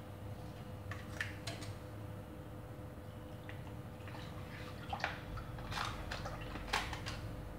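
Scissors snipping open a plastic bag of milk: a few faint, separate snips and plastic rustles, most of them in the second half, over a low steady hum.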